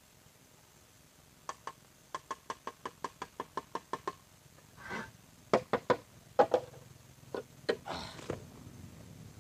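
A quick, even run of light knocks, about six a second, then several louder, irregular knocks with a couple of short rushing, scraping noises among them.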